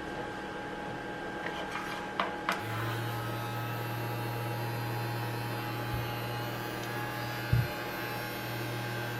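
Dr. Pen microneedling pen's motor running on a low speed setting: a steady low hum that starts about two and a half seconds in, after a few clicks of handling and switching it on, with one knock later on.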